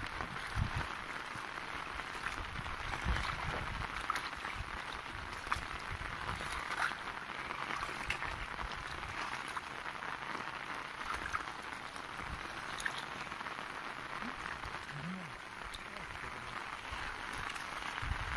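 Steady rain falling on a flooded grassy field: an even hiss, with scattered drops ticking close by.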